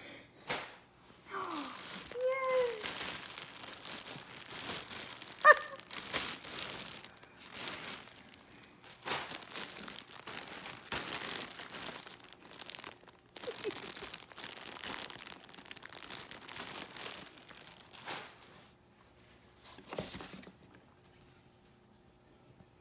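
Packaging crinkling and rustling as items are handled and lifted out of a cardboard box, in irregular bursts that die down near the end.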